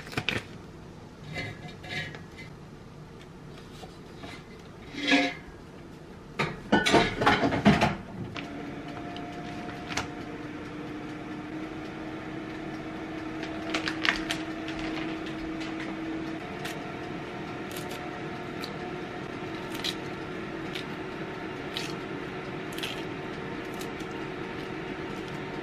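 Knocks and clatter of dishes being handled, then a small kitchen appliance running with a steady hum and a held tone from about eight seconds in.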